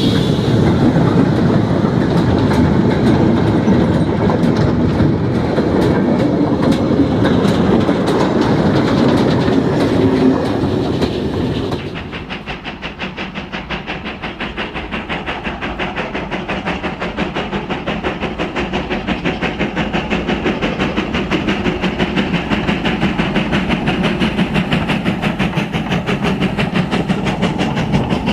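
OO gauge model train running on the layout track: wheels clicking over the rail joints with the motor running under it. About 12 seconds in the sound drops quieter and settles into a fast, even clicking beat.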